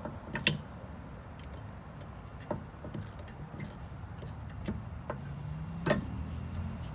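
Hand tools clinking and tapping against metal brake parts while the Torx bolts of the caliper's electric parking brake motor are worked out: a few irregular sharp clicks, the loudest about half a second in and another near six seconds.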